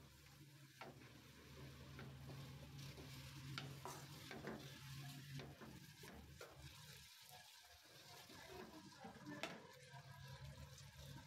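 Minced meat with onions and tomatoes stirred in a non-stick wok with a wooden spatula: faint scraping and tapping of wood on the pan, with a light sizzle of frying, over a low steady hum.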